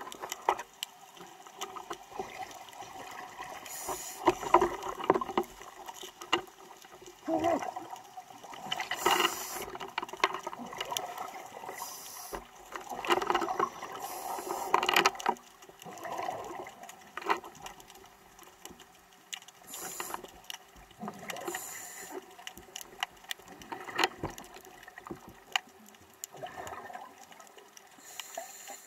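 Underwater sound of a scuba diver's exhaled regulator bubbles rushing out in bursts every few seconds. Clicks and knocks from handling run through it, over a faint steady hum.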